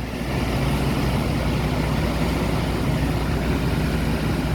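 Steady rushing roar of the river in flood, held back by an ice dam upstream that is barely moving.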